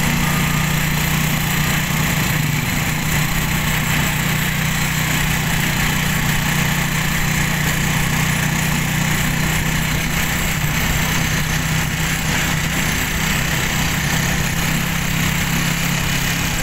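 Small motorcycle-type engine running steadily, heard from inside a motor tricycle's passenger cab while riding, an unbroken drone with a strong low hum.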